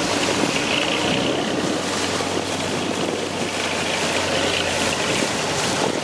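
A boat's engine running steadily with a low hum, under a constant rush of water and wind noise.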